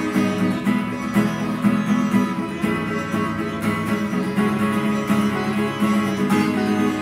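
An acoustic guitar and an Indian plucked lute with sympathetic strings play together in a duet.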